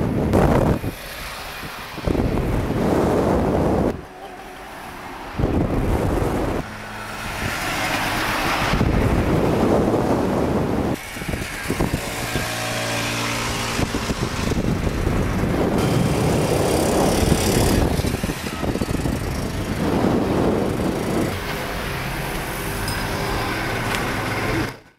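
Cars driving on the road, with wind rushing over the microphone of a moving car and engine and tyre noise. The sound changes abruptly several times, as short takes are cut together, and a steady engine hum stands out around the middle.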